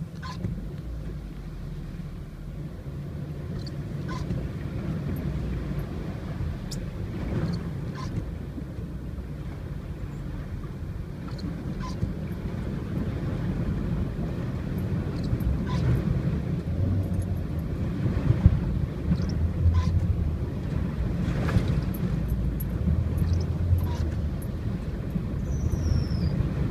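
A car driving through floodwater: the engine and tyres give a steady low rumble, with water sloshing and splashing against the car, growing louder toward the end. Short knocks and splashes come every few seconds.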